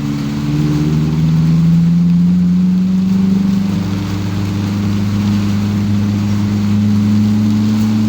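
A car engine pulling under acceleration, its note rising slowly and then holding steady, over a constant hiss of tyres on a wet road and rain.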